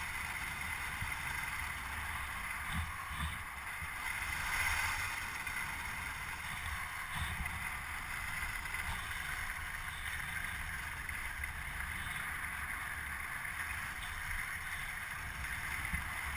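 Steady scraping hiss of a snowkiter gliding over snow-crusted lake ice, with a low, fluctuating rumble of wind on the microphone.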